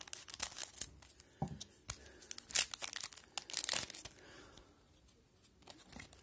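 Foil wrapper of a Panini Zenith hockey card pack being torn open and crinkled in the hands: a run of short crackling tears, loudest around the middle.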